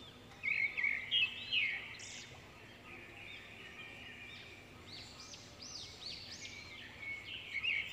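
Small birds chirping continually: many short, quick chirps that rise and fall in pitch, coming one after another.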